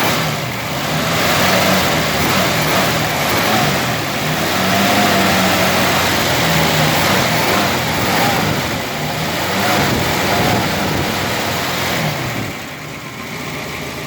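Freshly rebuilt 1965 Ford Mustang engine running, first start after three years parked; its pitch rises and falls a little, and it gets quieter about twelve seconds in.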